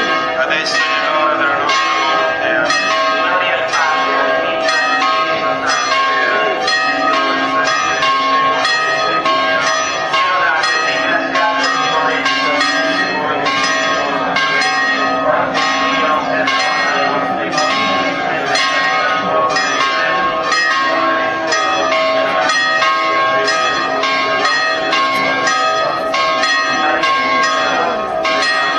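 Church bells ringing a continuous festive peal, struck over and over about once a second, their ringing tones overlapping.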